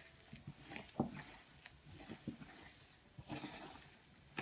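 Hands kneading and squeezing a crumbly butter-and-flour dough in a glazed earthenware bowl: faint, irregular soft crunching and squishing, with a few light knocks of hand or dough against the bowl.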